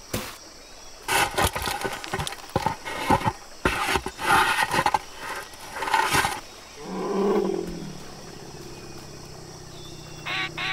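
Bornean pygmy elephant crashing through undergrowth at close range, a run of loud rustling crashes and knocks for about six seconds, then a low elephant call lasting about a second. A short falling call comes near the end.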